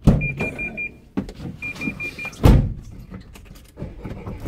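Two runs of four quick, high electronic beeps, then a single loud thump from a van door shutting about two and a half seconds in, with smaller knocks and rustling around it.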